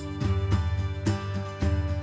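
Background music: plucked acoustic guitar with a steady rhythm.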